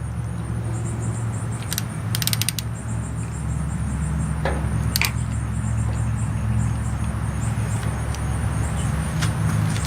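Ratchet wrench clicking in a few short runs, the loudest group about two seconds in, as the 14 mm fuel-system bleed bolt is tightened back down after bleeding air from the lines. A steady low hum runs underneath throughout.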